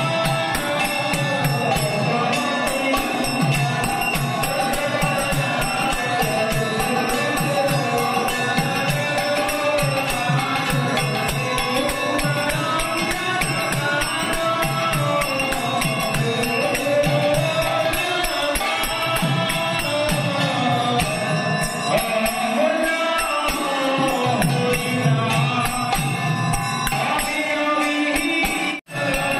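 Devotional music: a group chanting a mantra to a steady rhythm of hand percussion.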